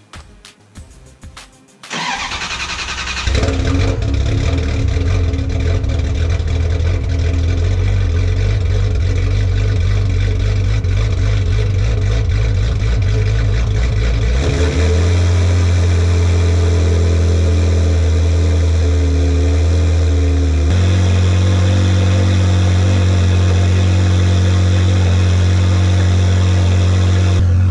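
A 1999 Ferrari 360's 3.6-litre V8, breathing through an aftermarket Larini exhaust, starts about two seconds in with a short rev, then idles steadily. The idle note shifts about halfway through and again a few seconds later.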